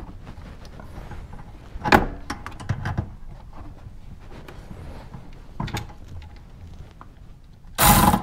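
Light knocks and clicks of parts being handled in a car's engine bay, a few isolated ones, then a louder run of clattering near the end.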